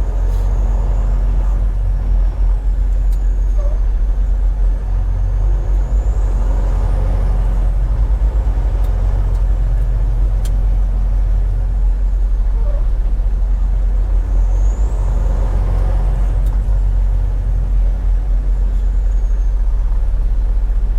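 Semi truck driving down the road: a steady, loud low rumble of engine and road noise.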